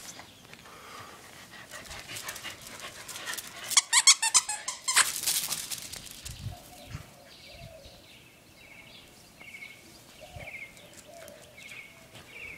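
Corgi puppies playing with a plush toy, with a loud burst of rapid high-pitched sound about four seconds in, followed by quieter scuffling and small high chirps.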